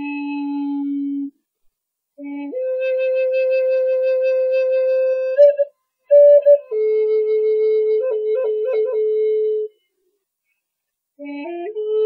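Solo flute playing a slow melody of long held notes, in phrases broken by short silences, with quick ornamental flicks between notes about eight seconds in.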